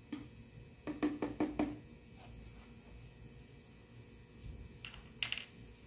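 A quick run of light hollow knocks about a second in, from a plastic canister being handled as a half roll of paper towels is pushed into it, then one short scraping rustle near the end.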